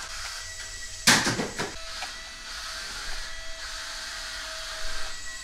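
Remote-control wall-climbing toy car's small suction fan running with a steady high whine and hiss. A loud sharp knock about a second in.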